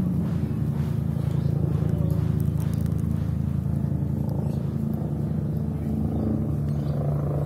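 A motor or engine running steadily with a low hum, shifting slightly in pitch about six seconds in.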